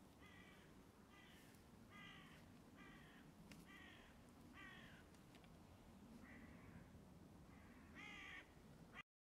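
Crow cawing faintly and repeatedly, about nine harsh caws that each drop slightly in pitch, the last one louder. The sound cuts out abruptly near the end.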